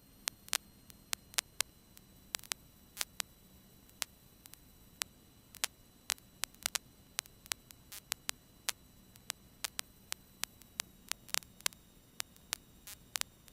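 Faint hiss and a low steady hum broken by irregular sharp clicks and pops, one to three a second: electrical static on the aircraft's radio and intercom audio line with no one transmitting.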